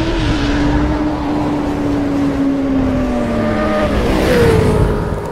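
Sport bike engine sound effect held at high revs, its note slowly falling and then dropping and settling about four seconds in, over a steady rushing noise.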